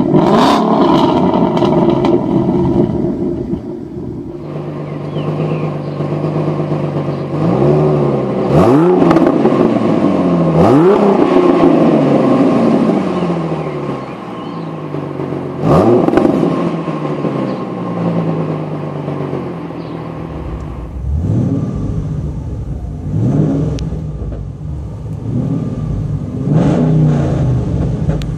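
Ford Mustang engines revving through aftermarket exhausts, in three clips. First comes a 2014 Mustang GT's 5.0 V8 with an off-road H-pipe, held high and steady. Then a Mustang with an H-pipe and mufflers idles and gives three sharp throttle blips that rise and fall back, and near the end a 2007 Mustang GT with an FR500 KR exhaust revs in several quicker blips.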